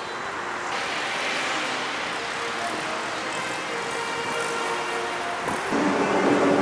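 Subway train running on the track overhead: a steady rumble with a droning whine that grows louder about five and a half seconds in.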